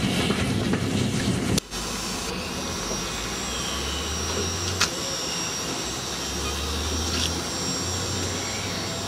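Steady rushing hiss of steam from a standing steam locomotive. About a second and a half in it breaks off sharply, then carries on a little softer with a steady high whine over it.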